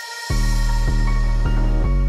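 Electronic background music: a heavy, sustained bass comes in about a third of a second in, under steady synth notes that change every half second or so.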